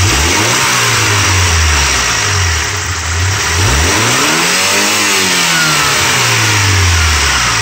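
Warmed-up Mazda B2600i 2.6 L G6 four-cylinder engine, running on a swapped-in B2200 F2 engine computer, revved up twice from idle, each time rising and then easing slowly back down. It revs cleanly, with no stumbling: the swapped computer is working fine.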